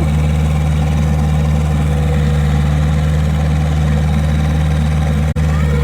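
Skid steer engine running at a steady speed, a constant low hum with no revving. The sound drops out for an instant near the end.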